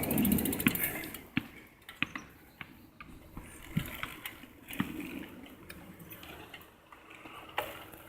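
A loud rushing noise that fades out in the first second, then irregular light clicks and knocks about once a second.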